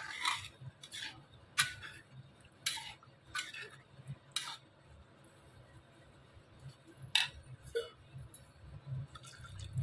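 Metal spatula clinking and scraping against a metal kadhai while stirring a thick wet curry gravy: a run of sharp clinks in the first half, a quieter stretch, then two more clinks near the end.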